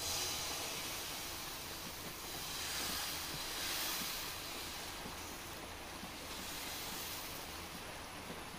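Tapioca dosa batter sizzling on a hot pan: a steady hiss that jumps up as the batter goes onto the pan, swelling a little midway.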